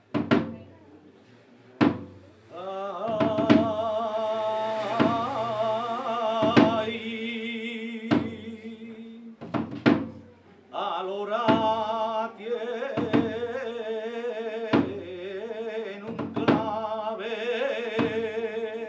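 A man sings a saeta, the unaccompanied flamenco song of Holy Week, in long wavering ornamented phrases. The singing starts about two and a half seconds in, breaks off for a few seconds in the middle and resumes. A slow, regular thump sounds about every second and a half underneath.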